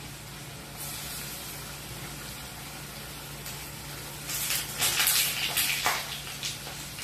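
Parippu vadas (lentil fritters) deep-frying in hot oil: a steady sizzle that grows louder and rougher for a couple of seconds, starting about four seconds in, as a slotted spoon turns them in the pan.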